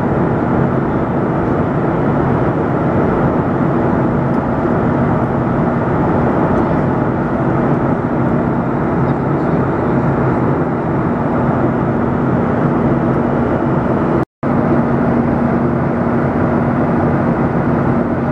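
Steady in-flight drone of a Boeing 737-900ER's CFM56-7B turbofan engines and rushing airflow, heard inside the cabin at a window seat beside the engine, with a low steady hum under the rush. The sound cuts out for an instant about 14 seconds in, and the hum is a little stronger after it.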